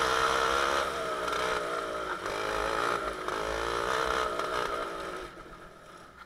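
Two-stroke TKM kart engine of a Club100 kart running at low speed, its pitch wavering up and down as the kart slows. The sound fades away about five seconds in.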